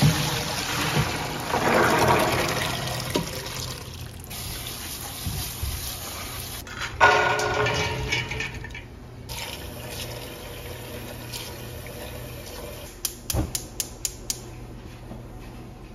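Water splashing as a pot of soaked pinto beans is drained through a plastic colander into a stainless steel sink. About seven seconds in, the drained beans tumble from the colander into a steel pot with a brief rattle. Near the end there is a quick run of sharp clicks as the gas burner is lit.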